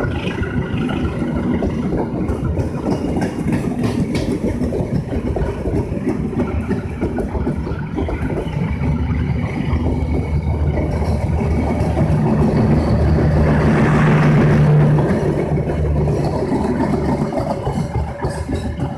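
Train running past, a steady rumble with a low engine drone that swells to its loudest about three quarters of the way through, then eases off.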